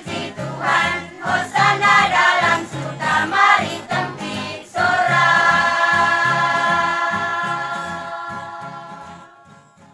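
A large church choir singing with a guitar strummed underneath: short rhythmic sung phrases, then, about five seconds in, one long held chord that slowly fades away.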